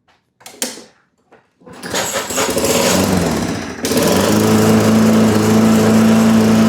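Toro walk-behind lawn mower pull-started: a few short clicks from the cord pull, then its single-cylinder engine catches under two seconds in and runs steadily. The recoil starter now engages the engine, its pawls set back in place.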